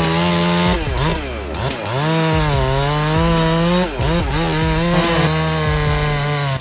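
Chainsaw engine running at high revs, its pitch sagging and picking back up several times, about a second in, near two seconds and near four seconds.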